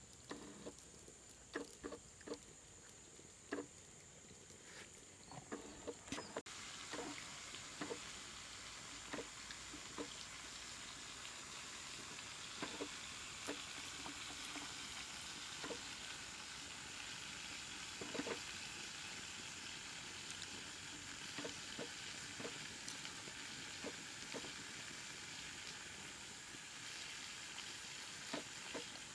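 Soft crackles and taps of dry, charred banana leaf as baked fish is pulled apart by hand. From about six seconds in, a steady faint hiss with scattered clicks.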